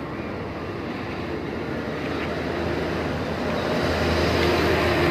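A motor vehicle's engine and road noise approaching, growing gradually louder, with a steady hum coming clearer near the end.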